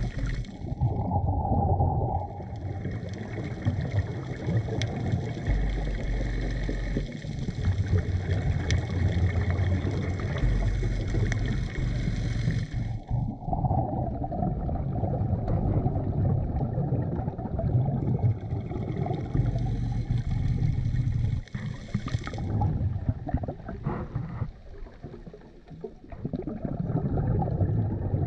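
Underwater sound of a diver breathing through a surface-supplied hookah regulator: long rushes of air and exhaled bubbles over churning water noise, stopping and starting a few times.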